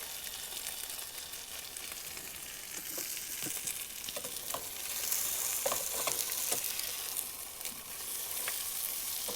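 Bologna slices frying in a pan: a steady sizzle that grows louder about halfway through, with scattered scrapes and clicks of a utensil against the pan.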